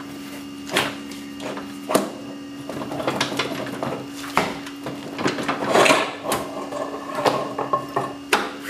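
Steel rear axle of a Yamaha Raptor 660 ATV being worked out by hand through its bearing carrier, whose bearings have broken apart. Metal scrapes and clunks come in irregular knocks, loudest about six seconds in.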